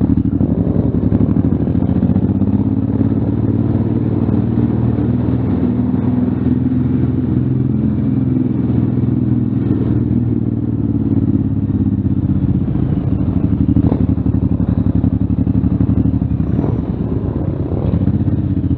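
Motorcycle engine running steadily at low revs, its pitch drifting up and down slightly.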